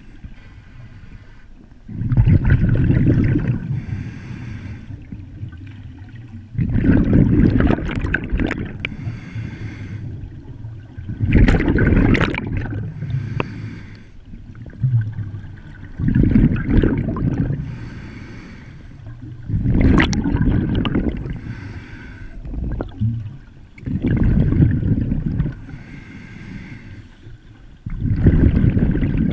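Scuba diver breathing through a regulator underwater: a bubbling rush of exhaled air every four to five seconds, seven breaths in all, with quieter stretches between.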